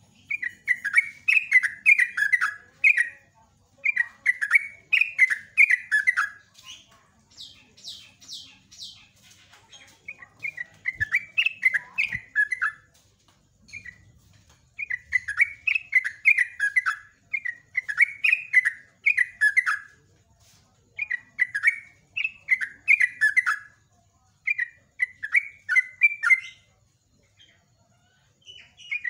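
Yellow-vented bulbul singing: repeated bubbly phrases, each a quick run of notes falling in pitch, delivered in bouts of two to three seconds with short pauses between. A run of higher, thinner chirps comes about eight seconds in.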